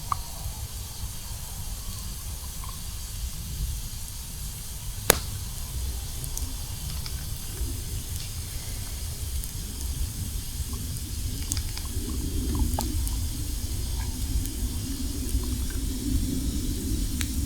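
Campfire crackling and hissing with scattered sharp pops, the loudest about five seconds in, over a steady low rumble.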